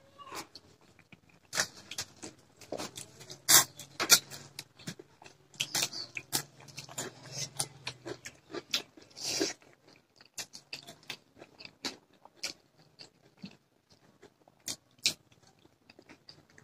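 Close-up eating sounds: wet chewing and lip smacks in short irregular clicks, with fingers mixing rice and curry on a plate.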